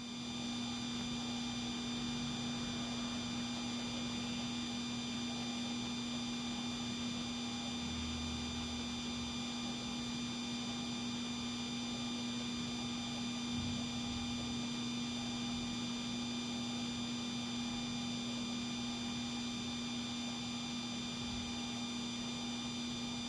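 A steady hum: one strong low tone with several fainter high-pitched whining tones above it, unchanging throughout.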